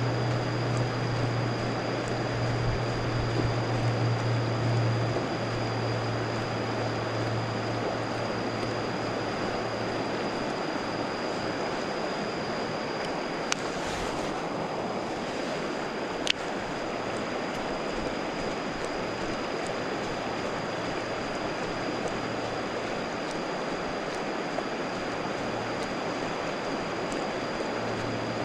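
Steady rushing water, with a thin high-pitched whine held throughout. A low hum fades out about a third of the way in and comes back near the end, and there are two sharp clicks a few seconds apart in the middle.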